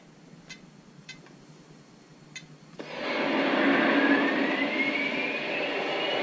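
A few faint clicks, then about three seconds in a loud, steady steam hiss starts suddenly from the sound system of a Lionel Vision Line O gauge Union Pacific Big Boy model locomotive, with a thin tone rising slowly in pitch through it.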